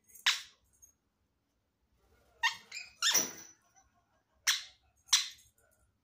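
Indian ringneck parakeet giving short, sharp squawks: one near the start, a quick run of three in the middle, and two more near the end.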